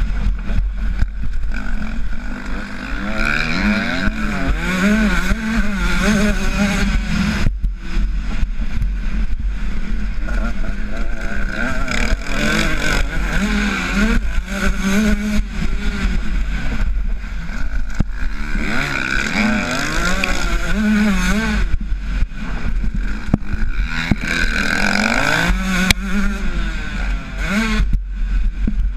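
Motocross bike engine revving hard and easing off again and again as the rider accelerates and shifts, the pitch rising and falling over and over, with a steady low wind rumble on the on-board microphone.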